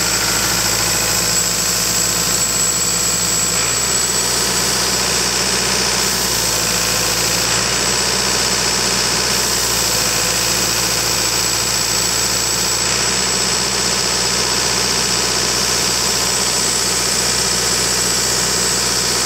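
Caterpillar 3054 naturally aspirated four-cylinder diesel engine in a portable air compressor, running steadily, with a steady high-pitched whine over it.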